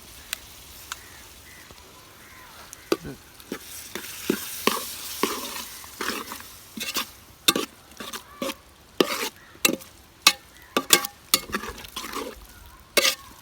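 Minced beef frying in masala in a pot over a low flame, sizzling softly while it is stirred with a spoon. The spoon knocks and scrapes against the pot again and again, the strokes coming louder and more often in the second half.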